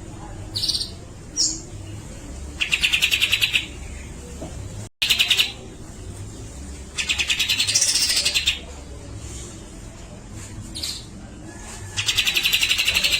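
Grey-cheeked bulbul (cucak jenggot) singing: short clear whistled notes broken by three harsh, rapid rattling bursts about a second long each, one of them with a high whistle rising and falling over it.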